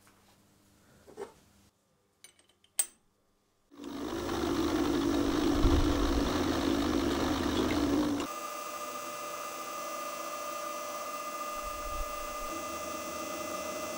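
A couple of sharp clicks, then a milling machine's end mill cutting into a metal bar: a loud, coarse, steady cutting noise for about four seconds. It stops abruptly and gives way to the mill's spindle running with a steady whine.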